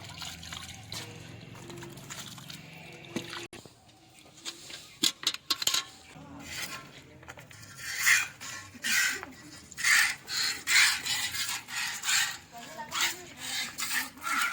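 Hand milking a cow into a metal pail: a few knocks against the pail, then from about eight seconds in, rhythmic squirts of milk hissing into it at about one and a half strokes a second.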